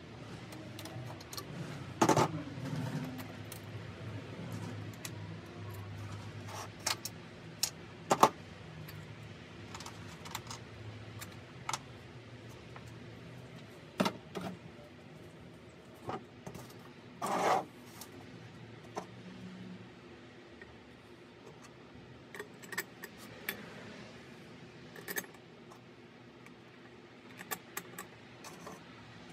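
Metal seat hardware being handled: scattered clinks and clanks of steel springs, brackets and bolts being worked loose from a motorcycle solo seat pan and set down on a table. There are a few louder clanks, the loudest about two seconds in.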